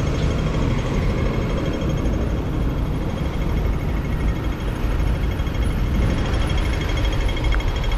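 Hong Kong pedestrian crossing's audible signal ticking rapidly, the fast tick that goes with the green man, over a steady low rumble of street noise.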